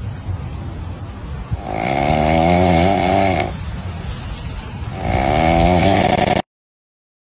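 Macaque monkey snoring: three long, rasping snores about every two to three seconds, the last cut off suddenly.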